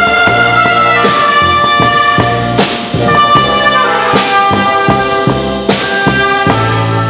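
A live band plays: a drum kit keeps a steady beat with sticks, with cymbal crashes about two and a half and four seconds in, under a held melody line in a reverberant hall.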